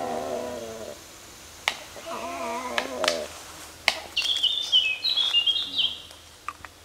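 Woodland birds calling: lower wavering calls near the start and in the middle, a few sharp clicks, then high, quick chirping phrases from a songbird in the second half.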